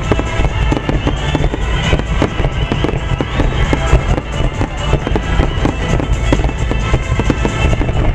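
A fireworks display firing a dense barrage, many shells bursting in quick succession over a constant low rumble. Music accompanies the show.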